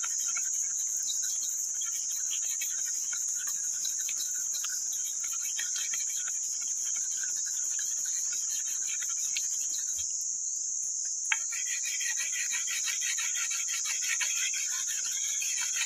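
A steady, high-pitched insect chorus: a dense, fast trill. There is a single faint sharp click about eleven seconds in.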